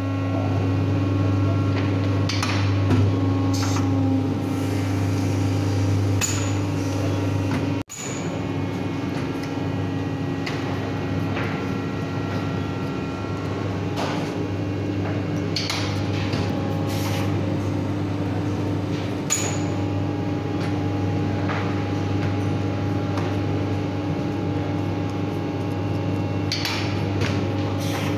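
Steady low hum of shoe-factory machinery, with scattered sharp clicks and knocks over it. The sound cuts out for an instant about eight seconds in.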